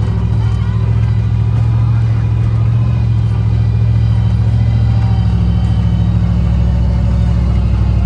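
Steady low drone of a car driving, engine and road noise running evenly.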